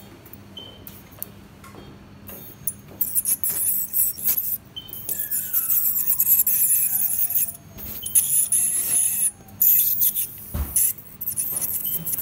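Ultrasonic dental scaler with its cooling water spray working on a dog's teeth: a high, hissing buzz that starts about two seconds in and cuts in and out as the tip moves over the teeth. A few short, high beeps are heard at intervals.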